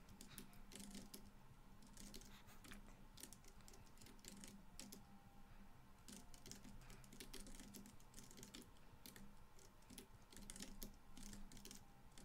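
Faint typing on a computer keyboard: quick, irregular key clicks in short runs separated by brief pauses.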